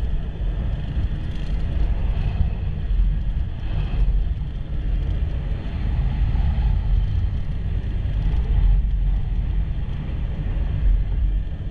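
Steady low rumble of a vehicle on the move.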